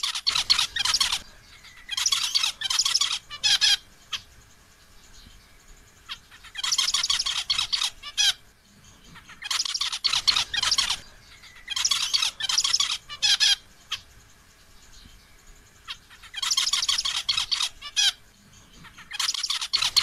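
Male zebra finch calling in short bursts of rapid notes, each burst lasting about a second, repeated about seven times with pauses of one to three seconds between them.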